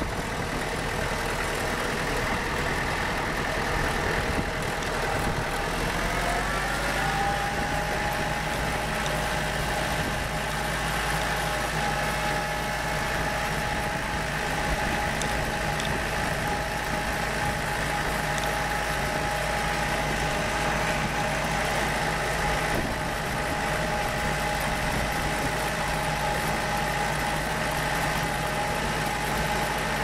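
Compact tractor's engine running as it drives along, its pitch rising about six seconds in and then holding steady at the higher speed.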